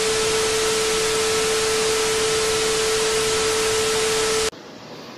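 TV static sound effect: loud, even hiss with a single steady tone under it. It cuts off suddenly about four and a half seconds in, leaving a much quieter steady room hum.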